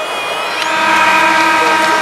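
Hockey arena horn sounding one long, steady note that starts about half a second in, most likely the horn marking the end of the game.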